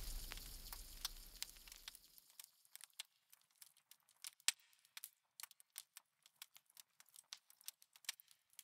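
Intro music fading out over the first two seconds, then faint, scattered crackles and clicks, about one or two a second.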